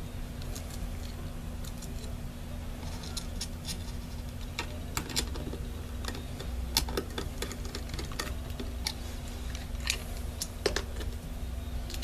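Scattered light clicks and taps of hands working parts and small screws inside an opened Mac Mini during reassembly, more of them in the second half, over a steady low hum.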